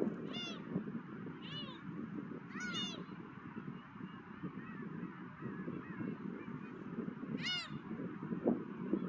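Gulls calling: four short, arching cries, one of them a quick double call near the three-second mark, over a steady low rush of wind.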